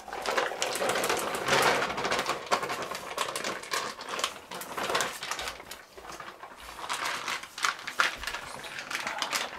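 Plastic vacuum bag crinkling and crackling irregularly as marinated meat chunks are squeezed and shaken out of it into a stainless steel bowl.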